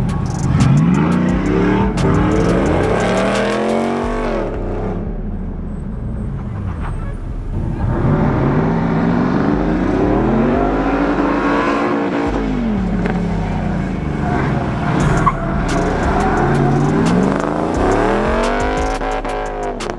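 Pickup truck engines revving hard through an autocross cone course. Engine pitch climbs and falls in long sweeps, three big ones, as the trucks accelerate and brake between cones.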